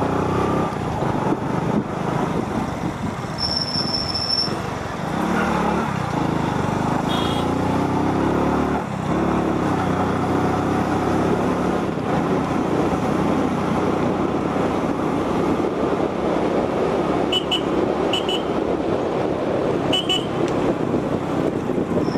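Several motorcycle engines running steadily on the move, with a few short horn toots near the end.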